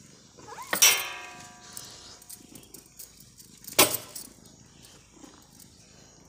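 A kitten meows once about a second in: a loud call that rises into a held pitch and fades. Just before four seconds in there is a single sharp knock.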